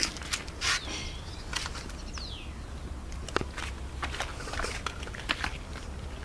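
A puppy and an older dog play-fighting at close range: scattered soft scuffles, clicks and mouthing noises, with a brief high falling squeak about two seconds in.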